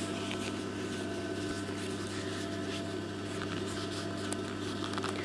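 Electric motor of a Singer 31K15 industrial sewing machine humming steadily, with no stitching under way.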